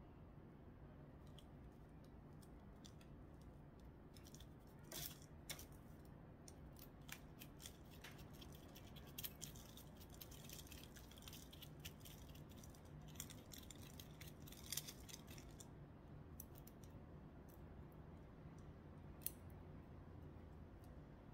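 Quiet handling noise from repotting succulent cuttings: scattered small clicks and dry crackling as old soil is worked loose from the roots and small scissors are handled, with one sharper click near the end. A low steady hum sits underneath.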